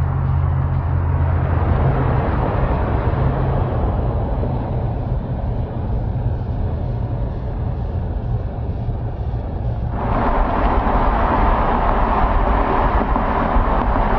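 2018 Audi RS5 coupe driving: a steady low engine drone under road and wind noise, which grows into a louder rush about ten seconds in.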